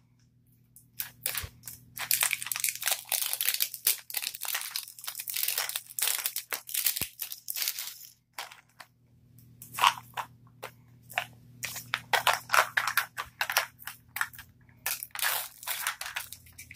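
Crinkly plastic wrapper packets from a Mini Brands toy capsule crackling and crumpling as they are handled and torn open, in two long stretches with a short pause about eight seconds in.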